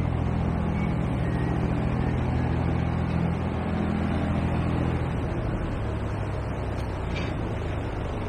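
Diesel engine of a canal workboat running as the boat passes close by, a steady low pulsing note. About five seconds in the note shifts lower.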